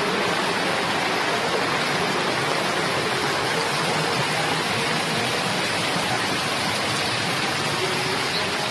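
Muddy floodwater rushing over rocks and through undergrowth: a loud, steady rush of fast-flowing water.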